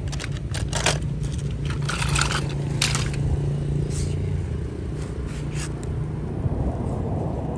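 Toy cars being handled, with a run of sharp clicks and short scrapes as they knock and rub against each other and the ground over a steady low hum. The clicks thin out in the last couple of seconds.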